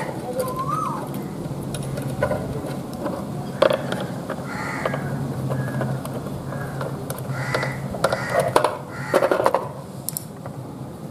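Small clicks and scrapes of a screwdriver turning the wire-terminal screws on a solar charge controller, with crows cawing now and then in the background.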